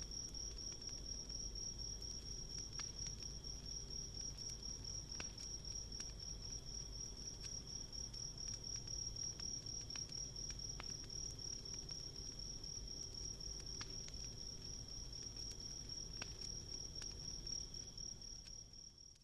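Crickets trilling in one steady, high, rapidly pulsing note, with sparse small crackles and pops from a wood campfire. The sound fades out near the end.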